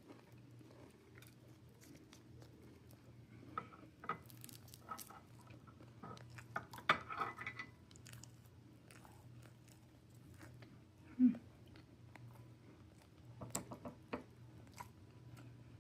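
A person chewing and biting tender boiled pork, with scattered small wet mouth clicks and a short "mm" about eleven seconds in. A faint steady low hum runs underneath.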